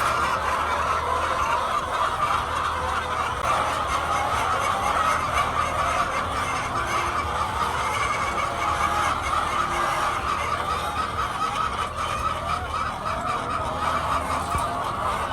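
A large flock of laying hens clucking and calling continuously, many voices overlapping, with a low steady hum underneath.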